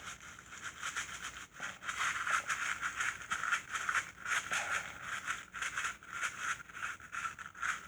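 Hands rubbing and scraping on the transmission case: quick, irregular scratchy strokes.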